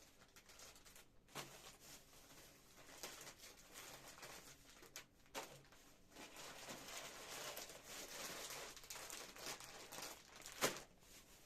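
Faint rustling and crinkling of things being handled, with scattered light clicks and knocks; the sharpest knock comes near the end.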